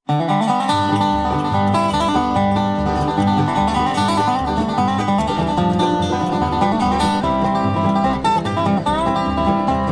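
An acoustic bluegrass band starts an instrumental tune abruptly after silence: banjo and guitar picking over bass, with sliding dobro notes.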